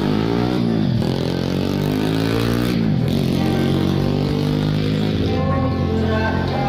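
Motorcycle engine running close by, its pitch dropping and climbing again twice as it revs. Live singing with acoustic guitar comes in near the end.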